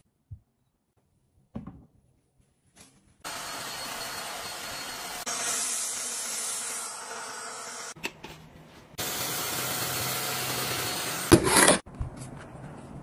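Near silence at first, then a stick vacuum cleaner runs steadily, sucking up spilled rice grains from a tile floor, with a short break in the middle. Near the end comes a brief loud rustle, then soft handling sounds.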